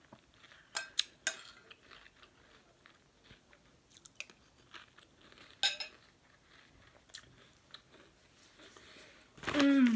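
Chewing a mouthful of Made Good Crispy Light strawberry cereal with milk, with a few sharp clinks of a spoon against the bowl about a second in and again near the middle. A short hummed "mm-hmm" near the end.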